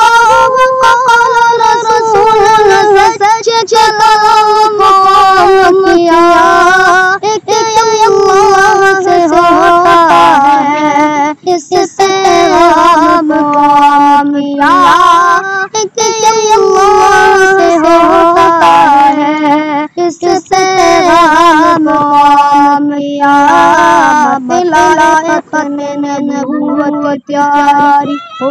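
A boy singing an Urdu nazam (devotional poem) solo, in a melodic recitation that rises and falls, with short breath pauses between lines.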